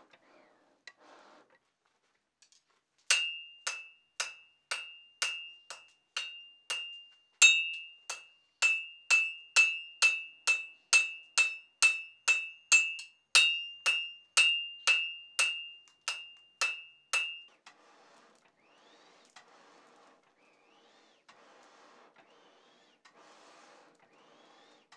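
Hand hammer forging glowing steel on an anvil: about thirty steady blows, roughly two a second, each with a bright ringing ping of the same pitch. The blows start about three seconds in and stop about seventeen seconds in.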